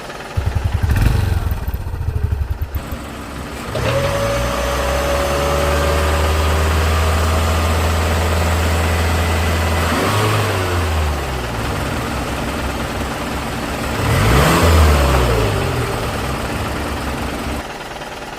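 Small engine chugging with rapid uneven knocks for the first few seconds, then running steadily from about four seconds in. Its pitch dips and rises twice as it is revved, and it cuts off near the end.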